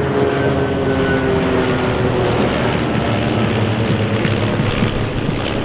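Formation of propeller-driven Van's RV aircraft passing, their piston engines droning steadily under a loud rushing noise, with the engine tones fading over the first couple of seconds.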